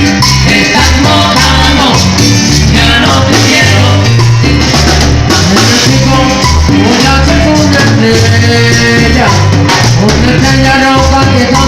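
Latin band music: an instrumental passage with a bass line moving under melody and percussion, played loud and steady.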